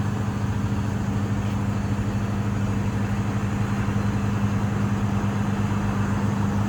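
A vehicle engine idling steadily, an even low hum with no change in speed.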